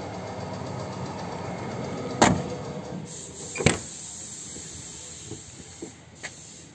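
Maruti Suzuki 800's car doors being shut: two solid thuds about a second and a half apart, followed by a few light latch clicks near the end.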